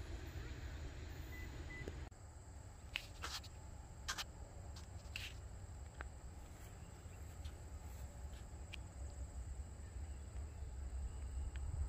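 Faint outdoor ambience: a steady high insect drone over a low rumble, with a few short, sharp high clicks between about three and six seconds in.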